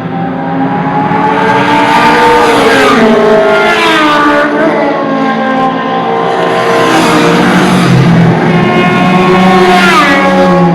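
Honda CBX 750F motorcycles' inline-four engines running loud. One holds a steady note while the engines rev up and fall back several times, the pitch climbing and dropping with each rev.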